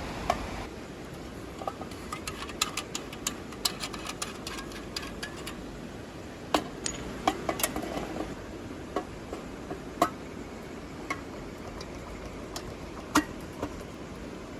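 Irregular sharp clicks and light knocks, some in quick clusters and a few louder single knocks, over a steady low rushing background.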